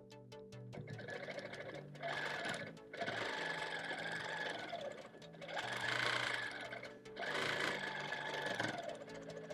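Longarm quilting machine stitching a long straight line across a quilt, its needle running in surges that swell and ease off several times, over background music.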